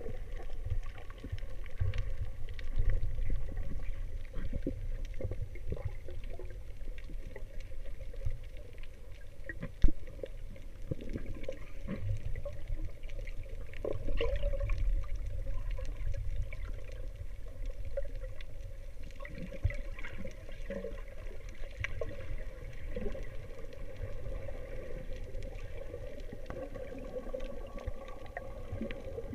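Underwater sound picked up by a camera held below the surface: a muffled low rumble of moving water with scattered faint clicks, and one sharp knock about ten seconds in.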